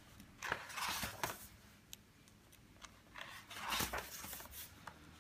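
Pages of a glossy paper catalog being turned and smoothed by hand: two papery swishes, one about half a second in and a longer one around three to four seconds in, with a few small ticks between.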